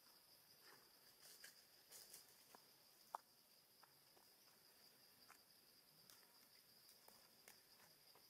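Faint forest ambience: a steady, high-pitched insect drone, with scattered faint clicks and one sharper click about three seconds in.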